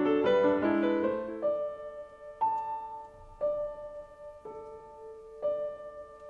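Soft solo piano music: a run of quick notes, then slow single notes struck about once a second and left to ring out.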